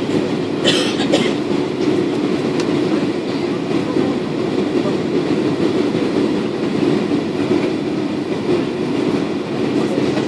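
Steady rumble of an airliner's engines and airflow heard inside the passenger cabin, with a few brief rattles about a second in.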